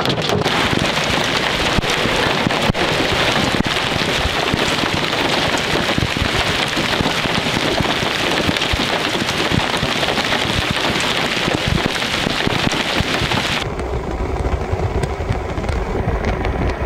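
Hail and rain falling on grass and pavement: a steady, loud hiss with a few sharper ticks of hailstones. About three seconds before the end it cuts abruptly to a low rumble.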